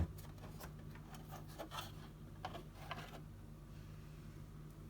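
Faint clicks and rubbing of hands handling the plastic flap of a tumble dryer's bottom compartment, about half a dozen small taps spread out, over a steady low hum.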